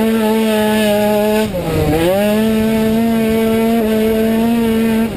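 Automatic racing scooter's engine held at high, steady revs, the pitch dipping briefly and climbing back about a second and a half in, with a small step up near four seconds.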